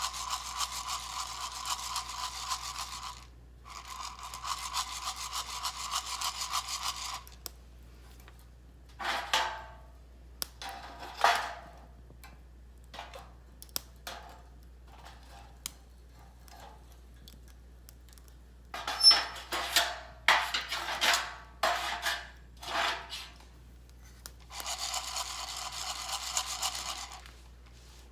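Coffee beans rattling and rasping inside an Irijouzu hand roaster as it is shaken over the fire. There are long runs of steady shaking near the start and near the end, and separate single shakes and clicks in between.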